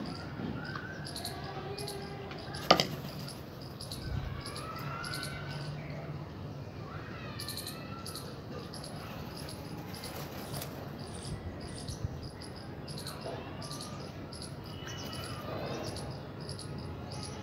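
Birds chirping and whistling in short, varied notes over a faint steady low hum, with a single sharp knock a little under three seconds in and a smaller click later.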